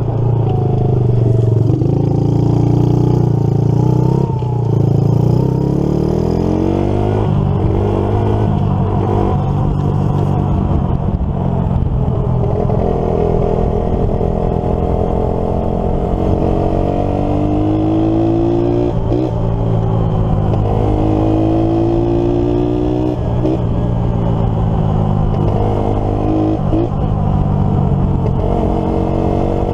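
1984 Kawasaki KLT110 three-wheeler's small four-stroke single-cylinder engine running under way, its pitch climbing and dropping back several times as it is revved and shifted through the gears.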